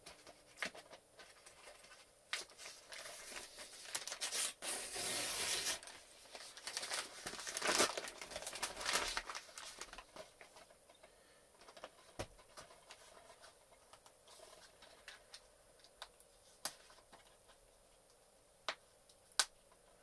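A mailer envelope being torn open and its packaging crinkled and rustled, in dense bursts through the first ten seconds. Then quieter handling with scattered sharp clicks, two louder ones near the end.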